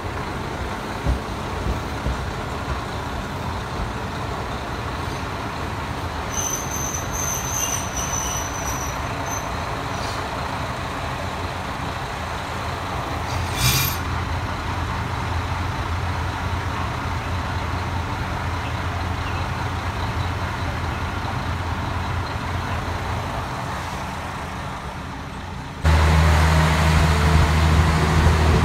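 Diesel railcars, among them a KiHa 40, idling at a station platform with a steady low engine hum. There is a brief high-pitched tone about seven seconds in. About 26 seconds in, the engine hum suddenly becomes much louder and deeper.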